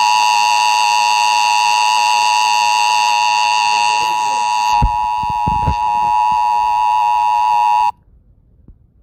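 Emergency Alert System attention signal: the steady two-tone alarm (853 and 960 Hz together) held for about eight seconds, then cut off abruptly, announcing an emergency broadcast message. A few dull low thumps sound underneath about five seconds in.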